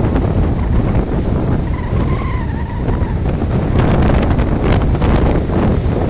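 Strong wind buffeting the microphone over breaking storm surf on a sandy beach. A brief wavering whine-like tone comes about two seconds in.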